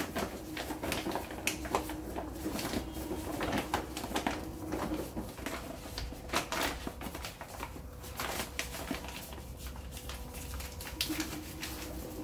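Automatic self-cleaning cat litter box (CATLINK) turning its drum slowly on its motor, the tofu litter granules sliding and ticking inside it. A low motor hum runs under irregular clicking and crackling.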